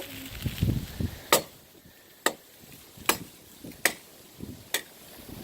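Wood being chopped: about five sharp strikes of a blade into wood, a little under a second apart.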